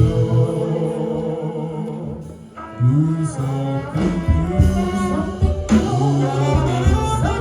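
Gospel singing with instrumental accompaniment and a steady bass line, the sound dipping briefly near the middle before the singing resumes.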